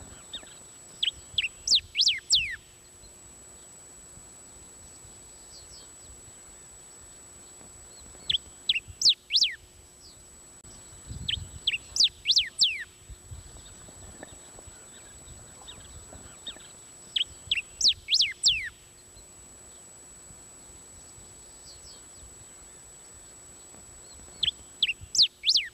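A bico-duro songbird singing five short phrases, each a quick run of sharp, falling whistled notes, spaced several seconds apart. A faint, steady high-pitched whine runs underneath.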